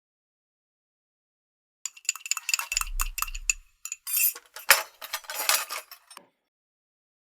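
Hard objects clinking and clattering for about four seconds, a rapid jumble of sharp clinks with some ringing, like dishes or glassware knocking together; it starts about two seconds in after silence and stops abruptly.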